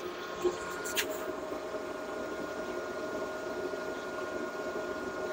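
Vevor Cut 50P plasma cutter's cooling fan running with a steady hum, plus a couple of sharp clicks in the first second while the machine's amperage is being turned up.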